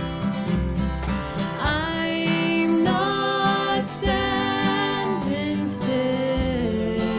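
Acoustic bluegrass band playing: plucked strings and bass keep a steady beat, and a sustained, sliding lead melody comes in about one and a half seconds in.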